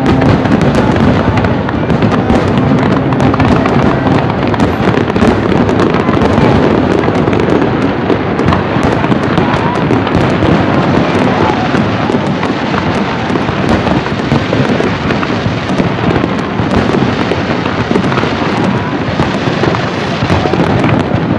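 Fireworks display: aerial shells bursting one after another in a dense, unbroken run of bangs and crackling.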